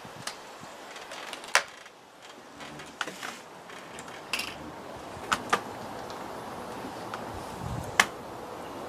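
Scattered mechanical clicks and clacks of a Reximex Regime PCP air rifle being handled, loaded with a pellet and cocked, with two sharper clacks about a second and a half in and near the end.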